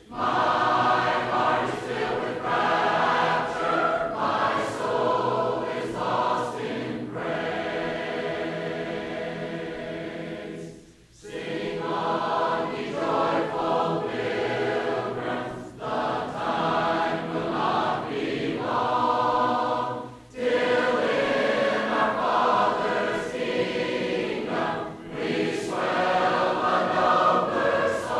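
Congregation of men and women singing a hymn together, unaccompanied, in the full-voiced style of a Churches of Christ congregation. The singing comes in phrases with short breaks between them, the clearest about eleven seconds in and again about twenty seconds in.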